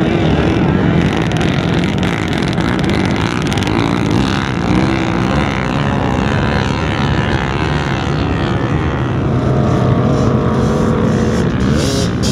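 Several sport quad (ATV) engines running and revving at once, their pitch rising and falling.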